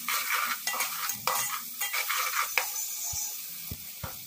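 A metal ladle stirs and scrapes through sliced onions frying in hot oil in an aluminium pot, with sizzling: the tadka stage, with ginger-garlic paste just added. The stirring stops about two and a half seconds in, and the sizzling goes on more quietly.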